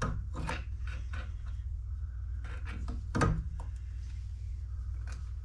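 Rear brake caliper being worked back over new pads and the rotor: scattered metal clunks and scrapes, with one louder knock about three seconds in, over a steady low hum.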